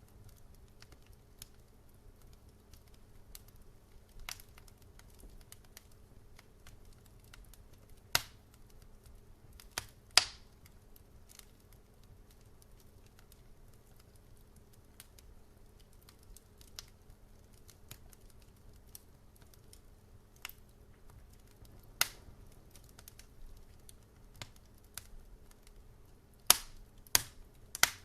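Wood fire in a fire pit crackling: a faint steady crackle with sparse sharp pops and snaps. Loud snaps come about eight and ten seconds in and again about twenty-two seconds in, with three in quick succession near the end.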